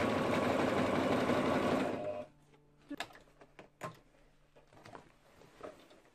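Domestic electric sewing machine stitching through leather at a steady fast run, stopping about two seconds in. Then a few light knocks as the leather is handled.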